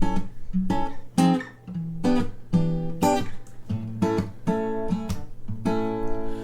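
Strummed acoustic guitar playing chords as an instrumental passage of a hymn recording.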